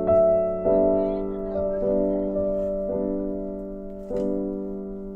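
Background piano music: slow sustained chords, a new one struck roughly every second, each ringing and fading.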